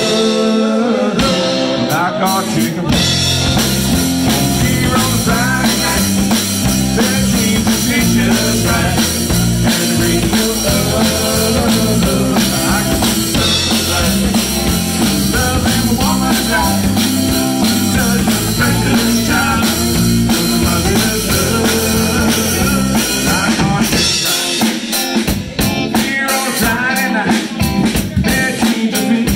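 Live band playing a country-rock song: electric guitar, electric bass guitar and a drum kit.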